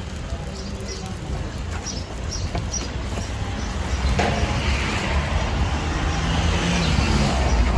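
Road traffic rumbling steadily, with a hiss that sets in about four seconds in and grows louder toward the end.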